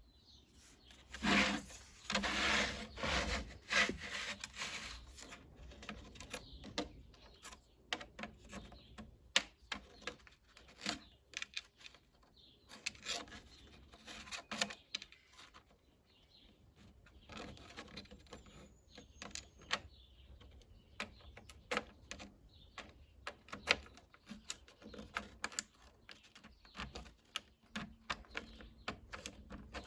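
Hands working metal sockets on a 3D-printed plastic socket rail: many sharp clicks and taps with stretches of scraping and rubbing, loudest in the first few seconds.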